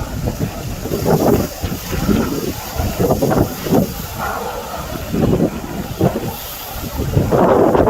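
Strong gusty wind buffeting the microphone, loud irregular low rumbling surges that swell and drop every second or so, loudest near the end.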